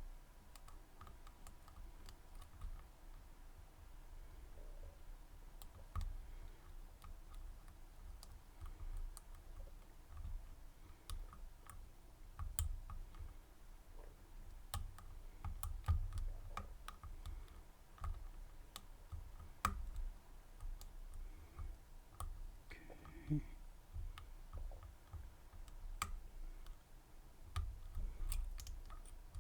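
Dimple pick and tension tool working the telescoping pins of an HQ-Lock dimple cylinder: light, irregular metal clicks and ticks, with low rumble from the lock being handled.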